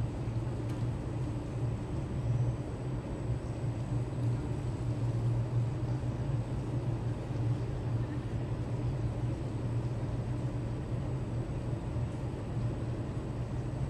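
A steady low mechanical hum, even and unbroken, over a faint background of outdoor noise.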